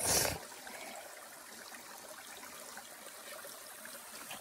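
Shallow creek water trickling steadily, with a short loud burst of noise right at the start.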